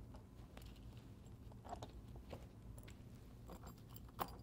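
Faint, scattered clicks and light taps of steel bolt solid plate fastener bottom plates being handled and pushed into punched holes in a rubber conveyor belt, with a sharper tap near the end.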